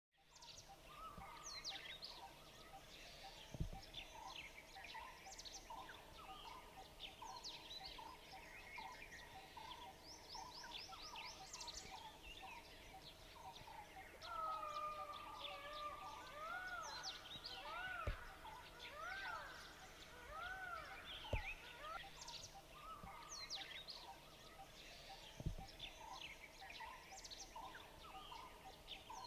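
Outdoor ambience of many birds chirping and calling, with one bird repeating a series of about five rising-and-falling whistled notes about halfway through. A few dull thumps stand out as the loudest sounds.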